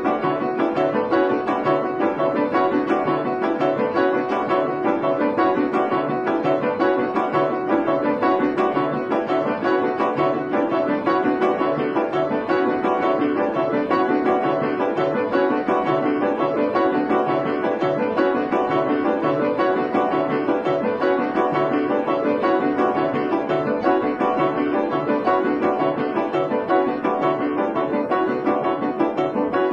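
Background music led by piano, a steady stream of quickly repeated notes.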